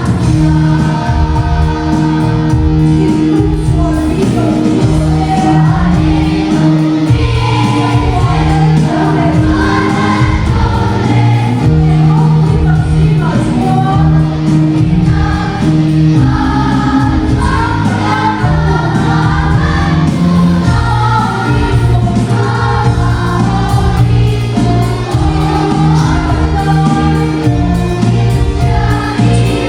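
Choir singing a gospel song over instrumental backing, with steady held bass notes under the voices.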